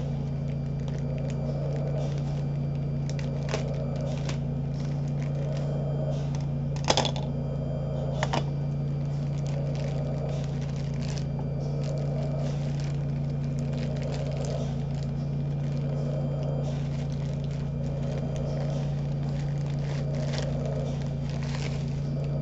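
Steady low machine hum with a soft swell about every two seconds, with a few sharp clicks and crinkles from an item and its packaging being handled, once a few seconds in and twice around the middle.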